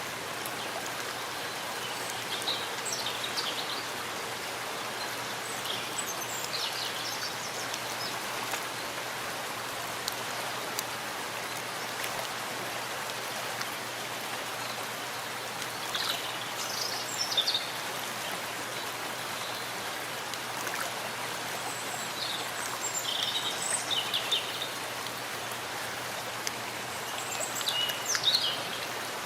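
Steady rain falling in a forest, an even hiss throughout, with short high chirping calls several times.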